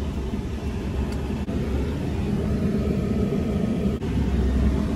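A heavily loaded truck driving, heard from inside the cab: a steady low road and engine rumble, with the engine note growing a little stronger in the second half.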